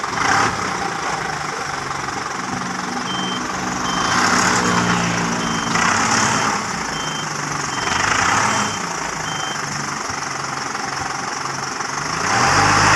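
Diesel dump truck engine running and revving up in several surges, while its reversing alarm beeps repeatedly for several seconds in the middle.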